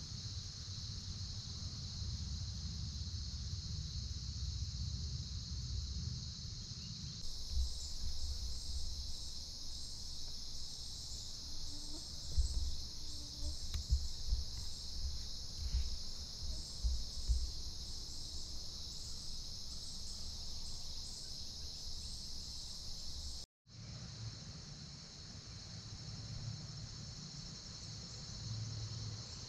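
A steady, high-pitched chorus of crickets and other insects, over a low rumble with a few soft thumps in the middle. The sound cuts out for a moment near the end.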